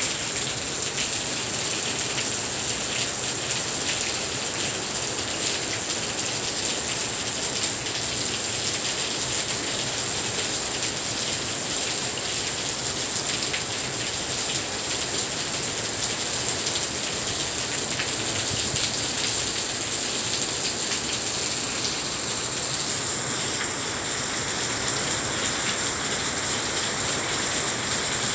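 Heavy rain falling steadily onto a balcony's plank decking and glass railing panels: an even, unbroken hiss of countless drops.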